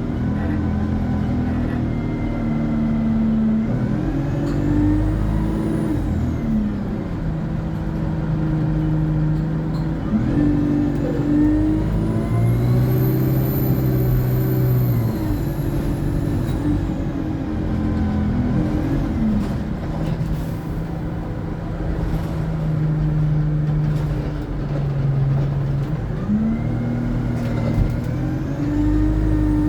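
Alexander Dennis Enviro 200 bus engine pulling away and easing off several times, its pitch climbing and dropping as the Allison automatic gearbox changes gear. A high turbo whine rises and falls with it, clearest about halfway through.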